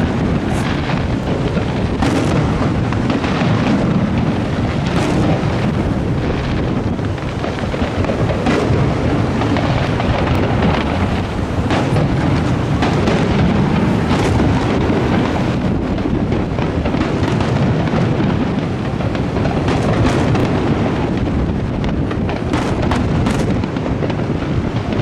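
Aerial firework shells bursting in quick succession: an unbroken run of booms with many sharp reports and crackle over it.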